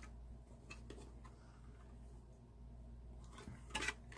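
Quiet room with a steady low hum and a few faint clicks of small objects being handled. The sharpest clicks come near the end.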